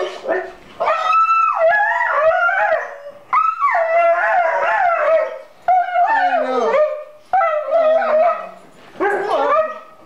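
A dog howling and whining in a string of long, wavering cries with short breaks between them, about six in all: an excited greeting of its owner home after a long absence.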